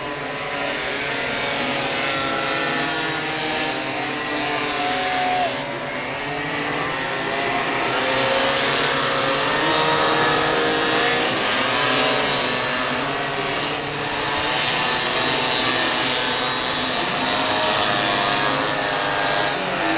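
A pack of modified 50cc racing scooters at high revs, many small engines buzzing over one another, their pitches rising and falling as the riders accelerate and ease off through the corner.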